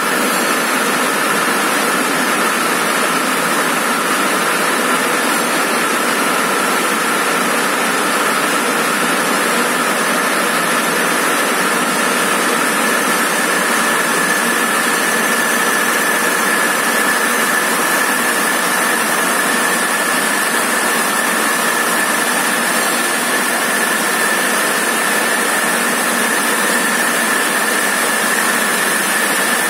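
Lohia LSL6 circular looms running, weaving tubular polypropylene raffia fabric: a loud, steady mechanical din with a high, even whine over it.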